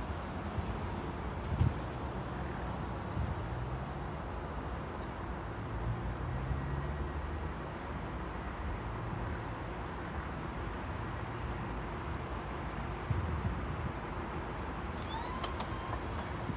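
Low steady rumble of a distant train approaching, with slowly shifting low tones. Over it, a bird repeatedly calls a pair of short, high notes, five times, every three to four seconds.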